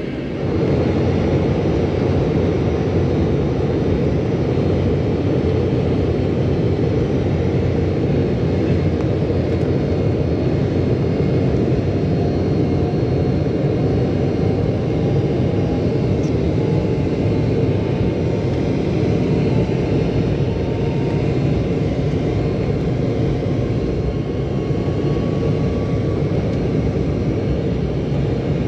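Embraer 195's twin GE CF34 turbofan engines at takeoff thrust, heard inside the cabin during the takeoff run: a loud, steady roar that comes up about half a second in. Over the second half a faint whine slowly rises in pitch.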